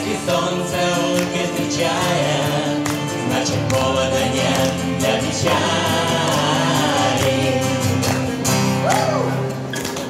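A live song: voices singing together to a strummed acoustic guitar.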